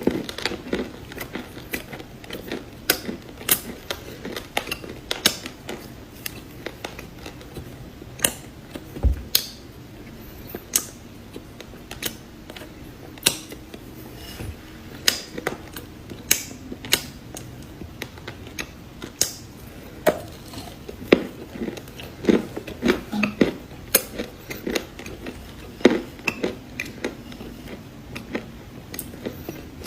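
A person chewing crunchy cookies close to the microphone: irregular sharp crunches, several every few seconds, over steady softer chewing.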